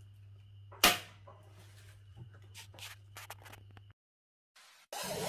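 Quiet room with a low steady hum, one sharp click a little under a second in and a few fainter ticks around three seconds. The sound cuts out about four seconds in, and near the end a loud, rising sound begins.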